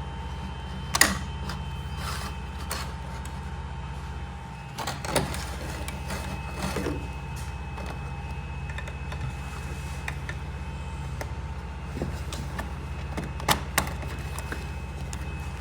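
Hands working a wire through car trim panels: scattered plastic clicks, knocks and rustling, the sharpest about a second in and a pair near the end, over a steady low hum.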